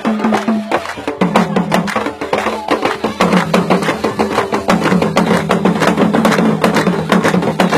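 Traditional percussion music: dense, fast sharp wooden-sounding strikes in a driving rhythm, over a low held tone that drops out and returns several times.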